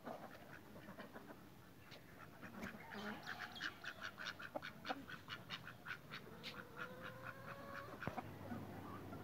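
Domestic fowl calling: a rapid string of short, repeated calls, about four a second, building from about three seconds in and stopping near eight seconds, with quieter scattered calls before it and a longer drawn-out call near the end.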